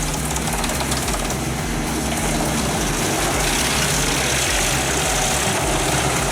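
Heavy industrial shredding machine running steadily under engine power, a constant loud grinding noise over a low engine drone.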